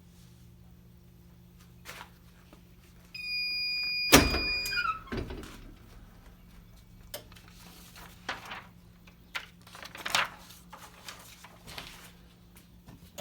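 Heat press timer beeping steadily for about two seconds, signalling the end of the 90-second press cycle, with a loud clunk partway through as the press is opened. Light clicks and rustling of handling follow.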